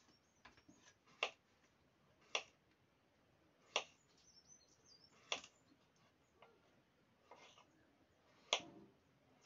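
Kitchen knife knocking on a wooden chopping board while slicing boiled eggs: about five sharp, separate taps, one every second or so.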